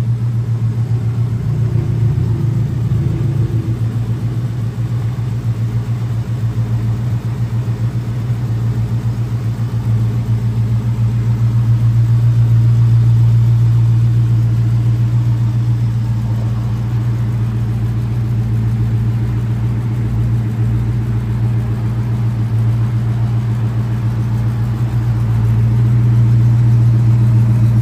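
1969 Plymouth Road Runner's 440 big-block V8 idling steadily through its dual exhaust.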